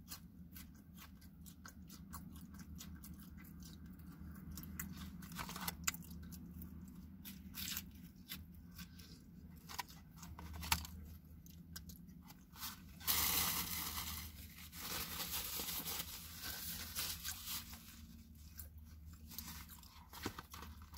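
Close-up chewing of a flaky-crusted chicken pot pie pocket: many small crunches and mouth clicks over a low steady hum. A louder rushing noise lasts about a second and a half, a little past halfway through.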